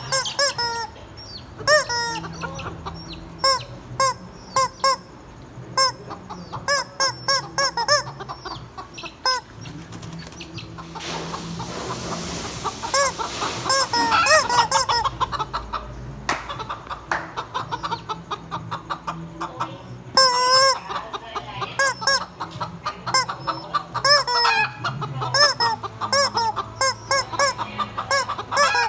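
Chickens clucking, a run of many short calls one after another, with a rushing noise for about two seconds near the middle.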